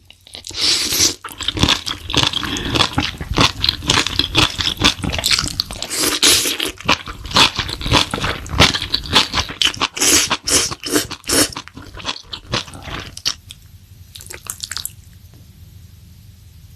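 Close-miked eating sounds: crunchy bites and chewing in quick succession for about thirteen seconds, then dying down to a few faint chews.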